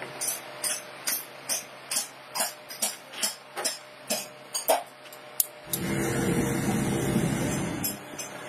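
Light metal taps at an even pace, about two or three a second, from a metal tool tapping on battery plates held in a steel clamp jig. About six seconds in the taps stop and a louder low rumbling noise runs for about two seconds.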